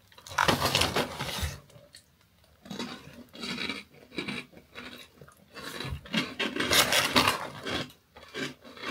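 Crunchy toasted croutons being chewed, in irregular crunching bursts, with the snack bag rustling.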